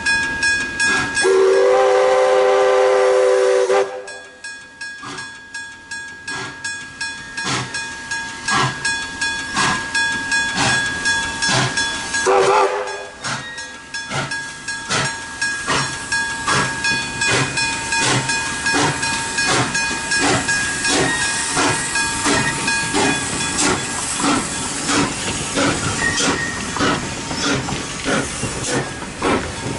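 Level-crossing bell ringing in a steady, even rhythm while steam locomotive K163 sounds its steam whistle: a long blast about a second in and a short one near the middle. Toward the end the locomotive comes up onto the crossing with steam hissing.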